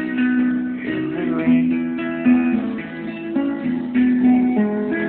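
Guitar playing the slow instrumental ending of a country song, single picked notes changing about every half second over held chords.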